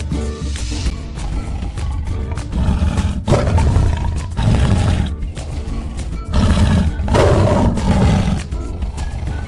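Cartoon big-cat roar sound effects, a tiger's roar, heard several times over upbeat children's background music.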